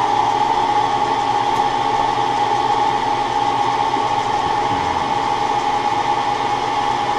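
Vertical milling machine's spindle running steadily with a drill bit turning in its chuck, a constant mechanical hum with a steady whine.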